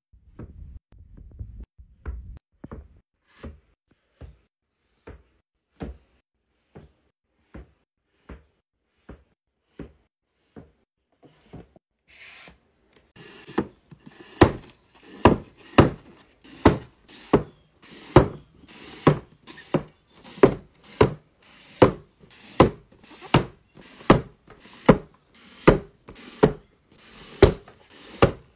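Paperback books being set down and pushed into place on a shelf one after another, each landing with a short knock, about one and a half a second. The knocks are soft at first and become much louder and sharper about halfway through.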